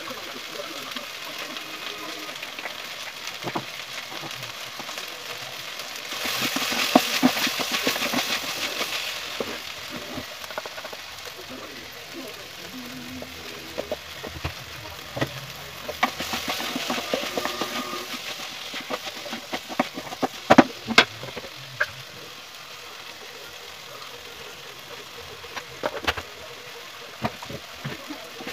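Okra, onion and tomato stir-fry sizzling steadily in a kadai, with two louder spells of stirring and scraping, about six seconds in and again about sixteen seconds in. A few sharp taps, as of a spoon or spatula on the pan, come past the middle.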